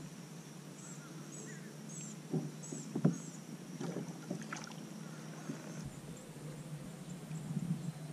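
Light knocks and handling sounds on a kayak, the loudest knock about three seconds in. Short high chirps repeat through the first half.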